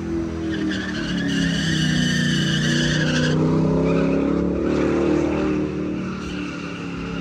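Full-size pickup truck doing a burnout donut: the engine is held at high revs while the rear tyres spin and squeal on the pavement. The squeal comes in about a second in, is loudest for the next couple of seconds, breaks off sharply, and then returns more weakly as the engine note falls and rises again.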